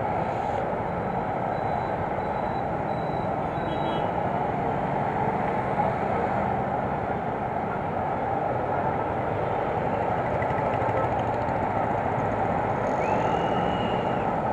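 Steady road-traffic hum of scooter and car engines idling and passing at a junction while waiting at a red light, with a brief high-pitched tone near the end.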